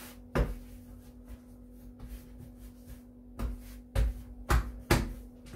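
Dough being worked by hand on a kitchen worktop: a sharp thump about half a second in, then four more in the last two seconds, over a steady low hum.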